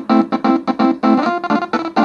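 A fast melody of short, clipped notes, several a second: a MIDI playback of a 12-note 'telolet basuri' bus-horn tune.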